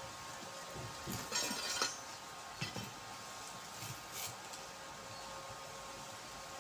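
A few light clinks and knocks: a quick cluster about a second in, then single ones near three and four seconds, over a faint steady hum.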